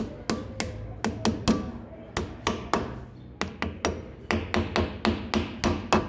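Light hammer taps driving a steel grease cap into a rear wheel hub: some two dozen sharp metallic taps, coming faster in the second half.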